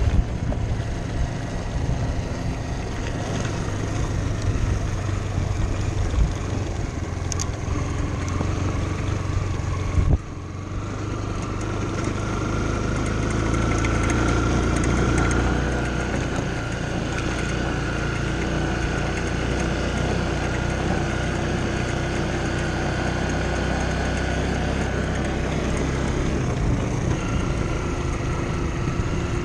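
Dirt bike engine running steadily under way as the bike is ridden along a dirt track, with a sudden cut about ten seconds in and the engine note growing louder for a few seconds a little after that.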